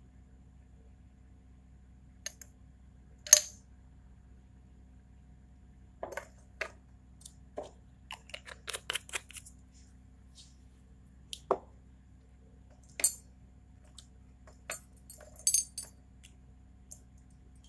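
Glass test tubes being handled at a plastic test-tube rack: a string of scattered sharp clinks and taps, the loudest about three seconds in, with a busy run of small clicks in the middle.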